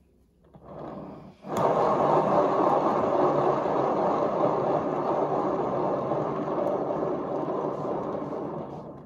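Hand-spun paint turntable rumbling steadily as it whirls, with a sudden start about a second and a half in and a gradual fade as it runs down near the end.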